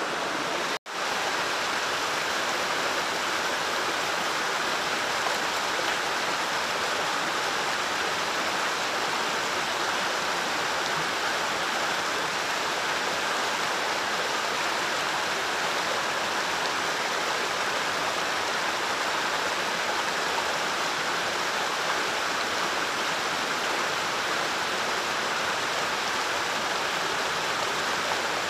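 Steady rushing of flowing water, which cuts out for an instant about a second in.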